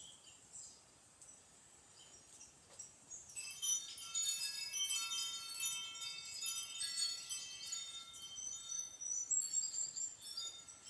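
Wind chimes tinkling: many overlapping high, bell-like tones struck and ringing, starting about three seconds in after a faint, quiet opening.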